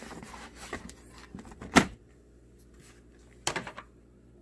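Small plastic caps being popped out of a car's plastic cowl panel. A light rustle of handling, then one sharp click just under two seconds in and a quick run of clicks near the end.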